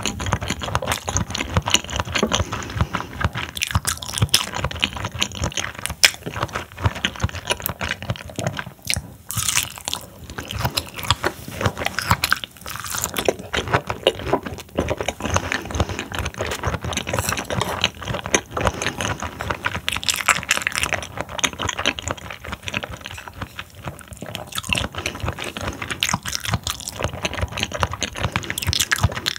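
Close-miked chewing of raw seafood sashimi: dense, irregular crunching and wet clicking mouth sounds throughout.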